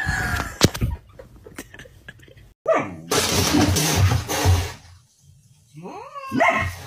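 A dog's drawn-out whining call opens, falling in pitch at first. A harsh, noisy snarl-like burst follows about three seconds in and lasts about a second and a half. A few short rising whines come near the end.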